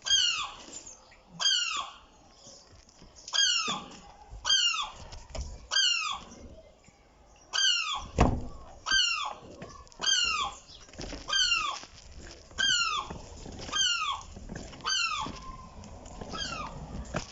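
Baby seagull (gull chick) calling over and over: short, high, falling peeps, about one a second, the cries of a young gull fallen from the roof. A single low thump about halfway through.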